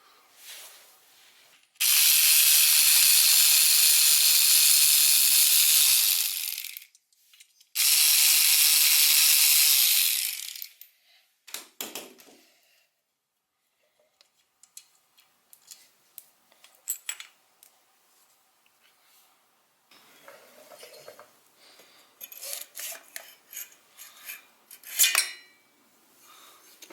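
Two long, steady hisses of several seconds each, then scattered light metallic clinks and taps of tools and small engine parts being handled.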